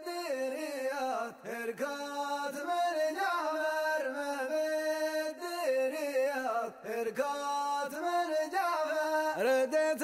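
Background music: a man singing a chant-like song in long, wavering melodic lines.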